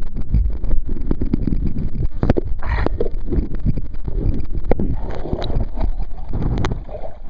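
Muffled, irregular rumbling with scattered knocks and scrapes from a jacket-mounted camera being jostled and rubbed against fabric.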